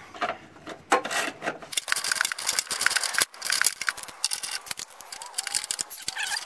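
Hand ratchet on a long socket extension clicking rapidly in quick bursts as it backs out 10 mm headlight-mounting bolts, with metal tool clinks and rubbing between strokes.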